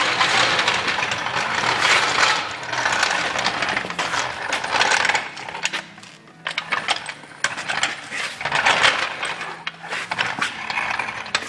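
Rapid metallic clicking and clinking of hand tools and parts on a lawn tractor's wheel hardware as the wheels are taken off. The clicks run dense for about six seconds, then come as separate clicks and rattles.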